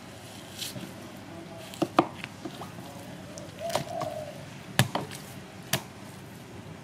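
Kitchen knife knocking and tapping on a plastic cutting board while crocodile meat is trimmed and sliced: a handful of short, sharp knocks at irregular intervals, the loudest about two seconds in and again near five seconds.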